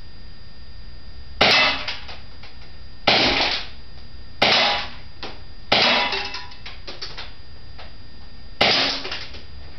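Smith & Wesson M&P CO2 airsoft pistol firing five shots at uneven intervals, each a sharp crack with a brief ring-out, with a few fainter clicks between the shots.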